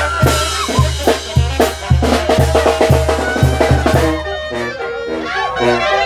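Banda sinaloense playing a cumbia, with a steady beat of bass drum and snare under the horns. About four seconds in the drums drop out, leaving short stepped brass notes.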